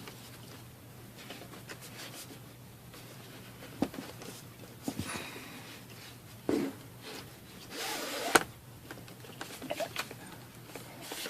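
Hands pressing and handling a laptop's bottom cover, with scattered clicks and taps as its raised edge is pushed down onto its snap clips. The sharpest click comes a little past the middle, right after a short rubbing sound.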